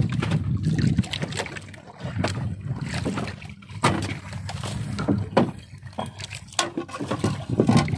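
Scattered knocks and clatter in the hull of a small wooden fishing boat as a freshly caught bisugo (threadfin bream) is set down and handled, over a steady low rumble of water against the boat.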